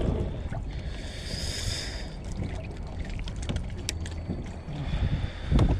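Handling noises on a kayak as a landing net holding a freshly caught sheepshead is brought aboard and the fish is gripped: scattered small knocks and rustles over a steady low wind rumble on the microphone, with one heavy thump near the end.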